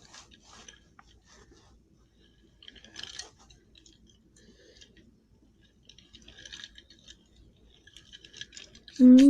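Faint scattered clicks and rattles of a Hot Wheels Turbo Beast plastic toy truck being handled and rolled along, a little louder about three seconds in and again past the middle. A voice starts right at the end.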